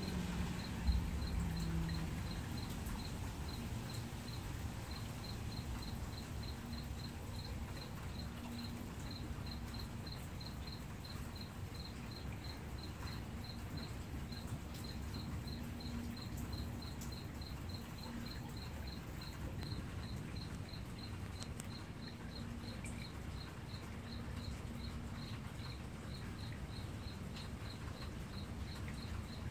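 A cricket chirping steadily, about three to four high chirps a second, over a low steady outdoor rumble.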